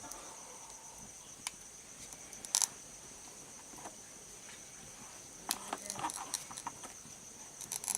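Steady high-pitched drone of crickets or other insects, with scattered clicks and taps, a small cluster of them past the middle and more near the end.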